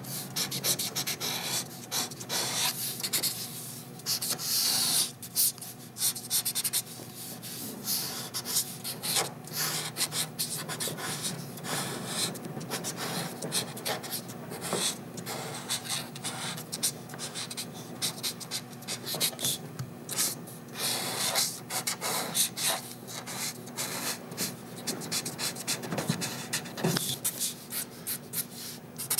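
Brush pen and marker strokes scratching and rubbing across drawing paper in quick, irregular flicks, as a figure is inked.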